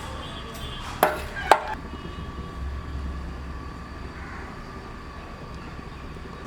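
Two sharp clanks of metal cookware against a cooking pot, about half a second apart, about a second in; after them only a low steady hum.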